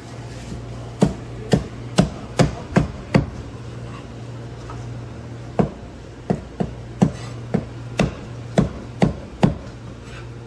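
Cleaver chopping a Cantonese roast duck through the bone on a thick wooden chopping block. There are sharp chops about two or three a second: six in a row, a pause of about two seconds, then a longer run. A steady low hum runs underneath.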